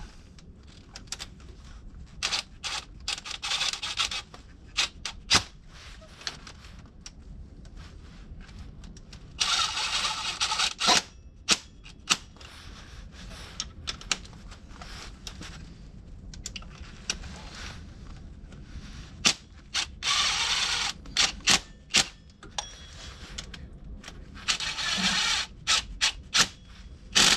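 Cordless impact driver hammering on bolts in short bursts of about a second, four times, with sharp clicks and knocks of hand tools on metal in between.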